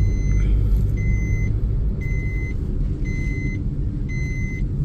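Car cabin noise while driving: a steady low rumble of engine and tyres on the road. A short high electronic beep repeats about once a second over it.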